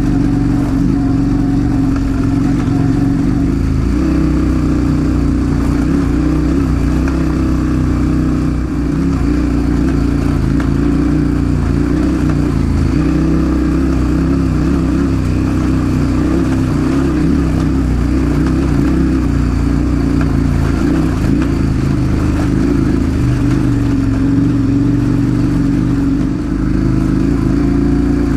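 Adventure motorcycle engine running steadily as the bike is ridden along, with a deep, even drone. The level dips briefly twice, about a third of the way in and again near the end.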